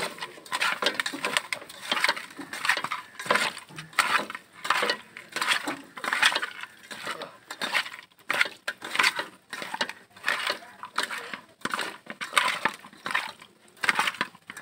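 Raw magur (walking catfish) pieces being mixed by hand with salt and turmeric in a metal bowl: rapid, irregular wet crunching and clatter of the fish against the bowl.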